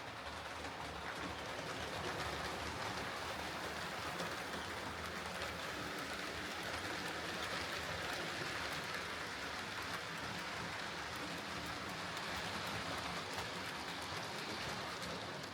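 Hornby Class Q6 OO gauge model steam locomotive, fitted with a new replacement motor, running along the track: a steady whirr and wheel rumble that swells and eases gently as it travels. It runs smoothly, the motor failure cured.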